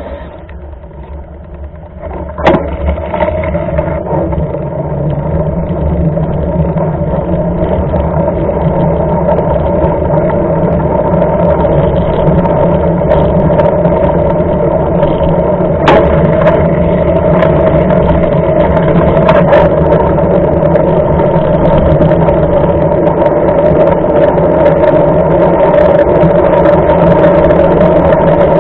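Steady rushing of wind and tyre noise on a bike-mounted action camera riding a wet road, building over the first several seconds and then holding, with a few sharp knocks from bumps.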